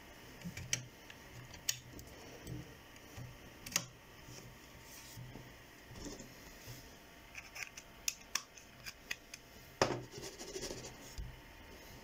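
Faint, irregular clicks of a computer mouse at a desk, about ten single clicks spread over several seconds, with light scratchy rubbing between them.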